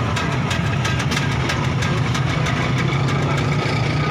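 An engine idling steadily, with a quick run of light clicks or taps over it in the first half.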